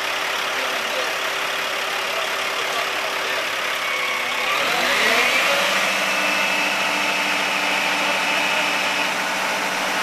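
Fire truck's diesel engine idling, then revving up about halfway through and holding at a higher, steady speed. The raised engine speed drives the aerial ladder's hydraulics as the ladder is raised.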